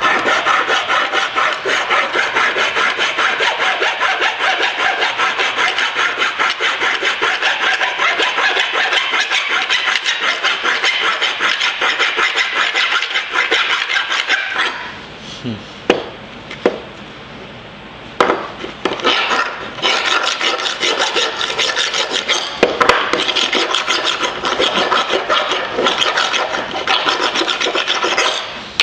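Hand file rasping in quick, steady strokes across the edge of a small cut-out aluminium part. The strokes stop for a few seconds about halfway, with a few sharp clicks as the piece is handled, then carry on.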